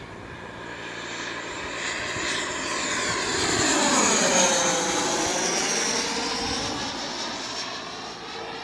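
Skymaster model jet's 120 mm Taiwan Tornado electric ducted fan whining through a low fly-by. It grows louder as the jet approaches and is loudest about four seconds in as it passes overhead. Then its pitch drops and it fades as the jet moves away.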